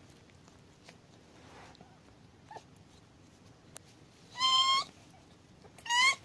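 Newborn kitten crying twice, high-pitched: a cry of about half a second, then a shorter, slightly rising one near the end.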